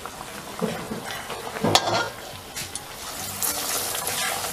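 Oil sizzling steadily as parippu vada (lentil fritters) deep-fry in an aluminium wok, with a few clinks and scrapes of a steel spatula against the pan as another fritter is slid into the oil.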